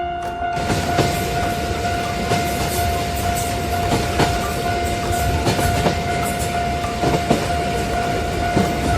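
Train passing, a steady rumble with irregular clacks of wheels over rail joints and a steady high tone held throughout; the tone and rumble cut off suddenly at the end.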